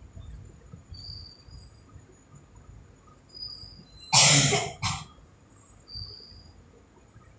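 A person coughs once, hard, about four seconds in, with a short second cough right after.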